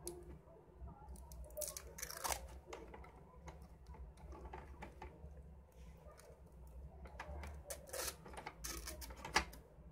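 Handling noise of threading adhesive tape into a plastic-bodied ZCUT-2 automatic tape dispenser: tape peeling off its roll in short crackly pulls and plastic parts clicking, with one sharp click near the end.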